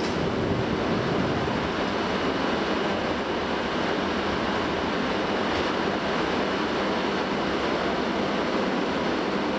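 Steady running noise of diesel railcars' engines, an even rumble and hiss with no change in level.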